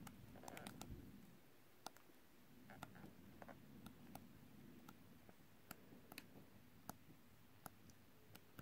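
Near silence with faint, irregular clicks and light rustling as sheets of a scrapbook paper pad are turned one by one.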